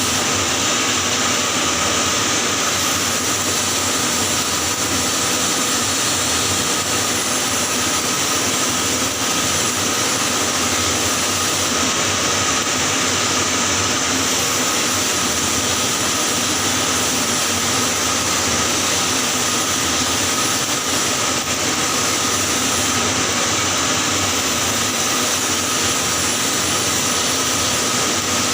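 Electric welding arc running steadily on a pipe joint being welded in the 6G position: a continuous hiss with no breaks.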